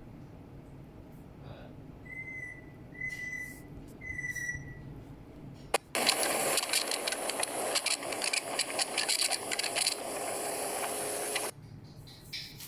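Wind buffeting a microphone, coming through even with noise reduction switched on: a loud, crackling rush starts about six seconds in and cuts off suddenly near the end. Before it come three short high squeaks and a click.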